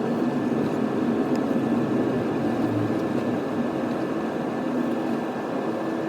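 Steady cabin noise inside an Airbus A350-900 taxiing to the runway: the engines are at idle thrust. A faint steady whine sits above the low, even rumble.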